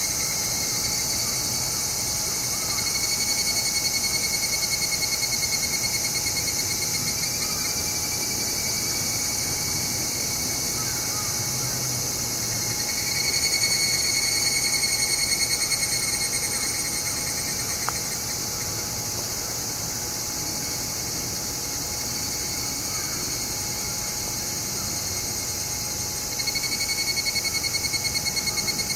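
Higurashi (evening cicadas, Tanna japonensis) calling: three bouts of rapid pulsing trill, each a few seconds long, over a steady high hiss.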